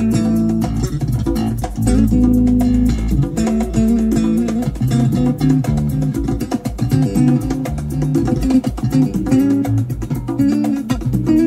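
Music with plucked guitar and bass guitar played through a car's aftermarket component speaker system, a tweeter and midrange mounted in the dashboard pillar, on a sound-quality test.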